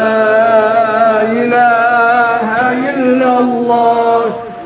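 A single man's voice chanting a long Islamic religious recitation: one drawn-out phrase with wavering, ornamented pitch that fades just before the end.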